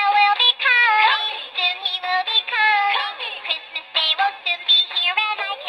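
A sound-book speaker plays a Christmas song: a cartoon-character voice sings over music, with a thin, bass-less sound.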